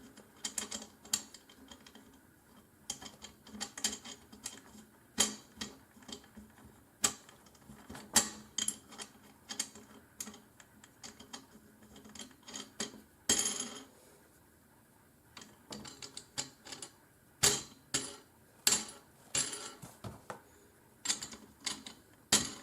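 Irregular clicks and light metallic clinks of the aluminum frame parts and roller fittings of a filament spool holder being handled and fitted together, with a longer scraping rustle about 13 seconds in followed by a short lull.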